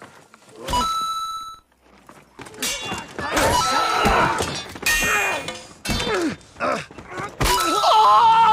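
Sword-fight sounds: a sharp impact with a short metallic ring about a second in, then from a couple of seconds on a run of blows and thuds with men grunting, groaning and yelling.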